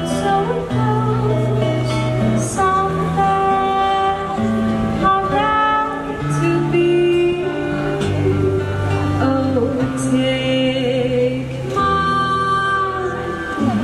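Live song: a female vocalist sings long held notes to acoustic guitar accompaniment, amplified through outdoor PA speakers.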